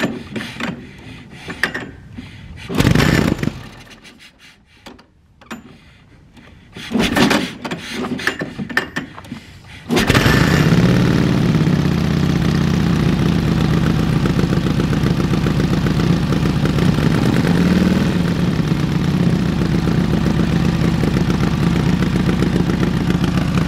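1946 Indian Chief's flathead V-twin being kick-started from cold: a few hard kicks turn it over, then about ten seconds in it catches and settles into a steady, fast cold idle on choke.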